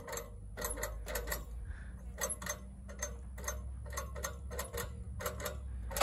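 Woodland Mills hand winch being cranked, its ratchet pawl clicking at about four clicks a second, unevenly and often in pairs, as it hauls a log up the loading ramps.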